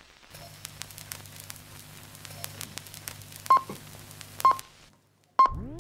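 Old film-leader countdown sound effect: crackle and pops over a low hum, with three short high beeps about a second apart. A rising swoop comes in near the end.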